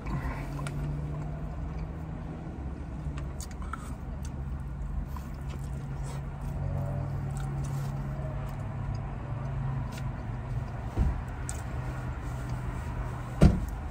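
A car engine idling close by, a steady low hum that fades about ten seconds in, with chewing and small mouth clicks over it. A short, louder thump comes near the end.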